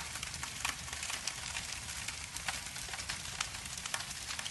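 Steady rain with a crackling fire: an even hiss with irregular sharp pops and crackles scattered through it.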